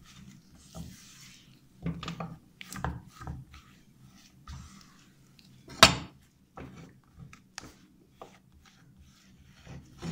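Silicone spatula pressing and turning thick churro dough in a nonstick pan: irregular soft knocks and scrapes against the pan, with one sharp knock about six seconds in.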